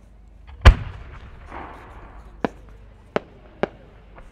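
A 10-inch (No. 10) aerial firework shell is fired from its mortar with one loud, deep boom. A brief hiss follows, then four sharp cracks from the small effects attached to the shell as it climbs.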